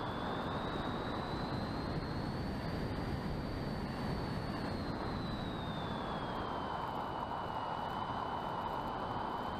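Electric motor and propeller of a small RC plane whining, heard from its onboard camera with wind rushing over the microphone. The whine climbs in pitch over the first few seconds, holds, then drops back about two-thirds of the way through and stays steady.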